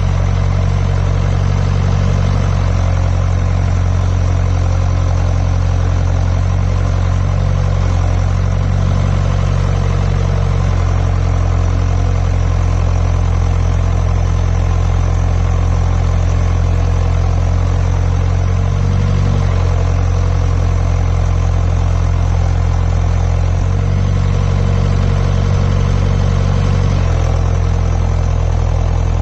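John Deere 6400 tractor's diesel engine running steadily under way, its low drone shifting slightly in pitch a few times as engine speed changes.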